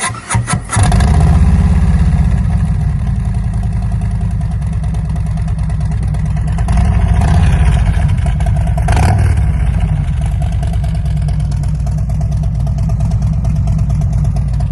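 Harley-Davidson Road Glide V-twin cranking and catching, then running loud and uneven through Angry level 2 baffles with slash-cut end caps, with a brief rise in revs about halfway through.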